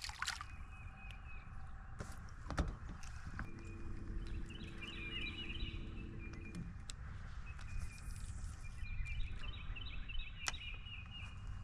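A small crappie splashing into the water as it is tossed back, then a quiet lakeside background with birds chirping in two short spells. A steady motor hum, fitting an electric trolling motor, runs for about three seconds midway, and there is a single knock a couple of seconds in.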